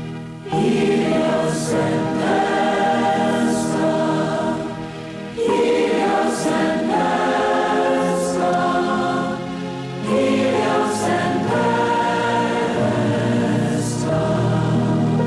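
Congregation singing a devotional mantra together as a choir, in three phrases that start afresh about every five seconds.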